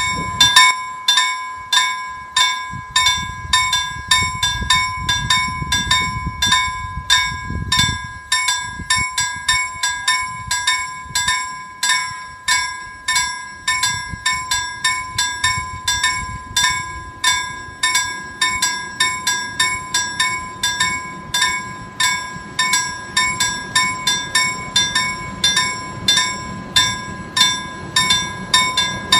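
Railway level-crossing warning bell ringing over and over at about two strokes a second, warning of an approaching train. In the second half the low rumble of a YP-class railbus comes in underneath as it nears the crossing.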